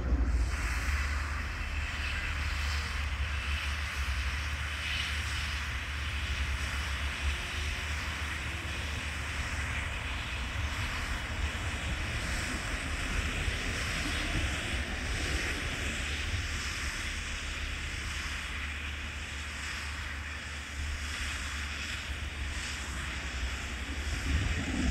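Steady drone of a distant tractor and round baler-wrapper at work, with wind rumbling on the microphone.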